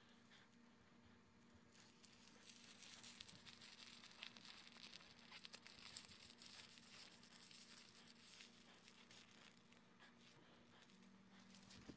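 Faint crackling, crinkling rustle for several seconds in the middle, with one sharp click partway through.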